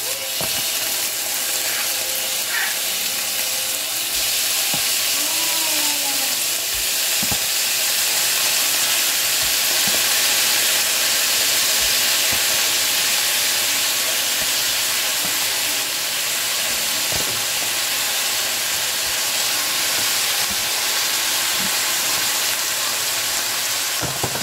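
Wet marinated diced pork sizzling in hot olive oil in a stainless steel frying pan, a steady hiss of frying and steam that swells as the meat goes in. A few light knocks of a wooden spoon stirring.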